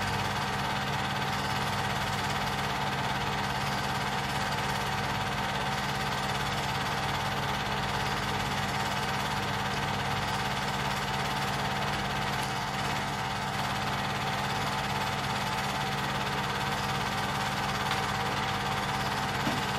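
Film projector running: a steady motor hum with the even whir of its mechanism, unchanging throughout.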